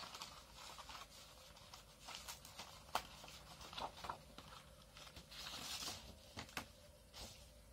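Faint rustling and crackling of a sheet of paper being handled and flexed, with scattered light clicks and a longer rustle about five and a half seconds in.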